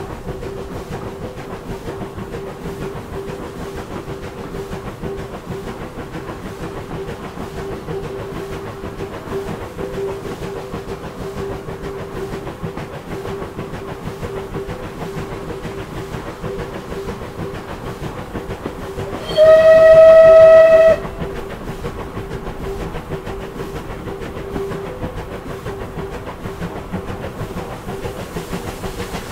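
A Bulleid Battle of Britain class steam locomotive standing with a steady hum and hiss. About two-thirds of the way in, its steam whistle gives one loud, single-tone blast of about a second and a half.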